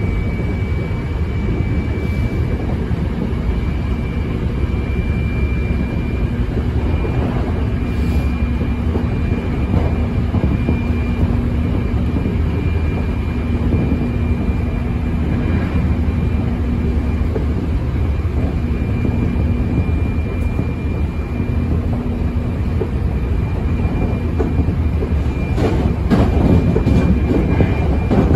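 Hankyu 7300 series electric train heard from inside the passenger car while running at speed: a steady rumble of wheels on rail under a faint steady whine. The clatter gets louder near the end.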